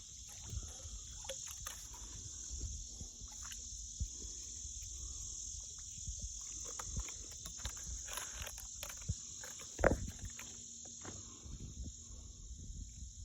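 Steady high-pitched insect chorus, with scattered clicks and knocks and one louder knock about ten seconds in.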